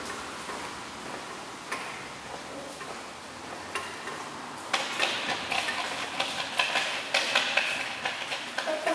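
Footsteps on a tiled underpass floor: a few scattered steps, then a steadier run of clicking steps at about two or three a second from about halfway through. At the start a passing train's rumble is still fading out.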